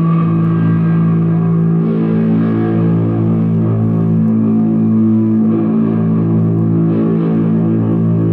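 Live noise music: a dense, sustained drone of layered steady low tones with a hiss above, loud and unbroken, with no beat.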